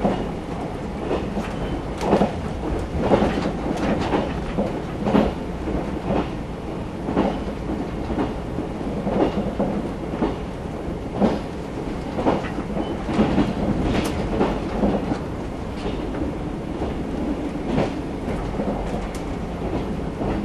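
Running noise of a JR 381 series electric limited-express train heard inside the carriage: a steady rumble with many irregular sharp clacks of the wheels over rail joints.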